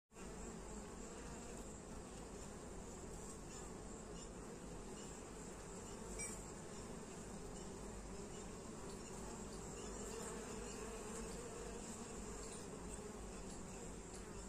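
Western honey bees (Apis mellifera) buzzing at a hive entrance: a steady hum of many beating wings. A single brief click comes about six seconds in.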